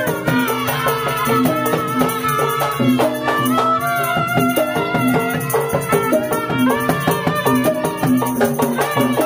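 Live Betawi ondel-ondel street music: a two-string bowed fiddle (tehyan) plays a sliding, wavering melody over a steady beat of drum, small hand-struck gong and a jingling tambourine.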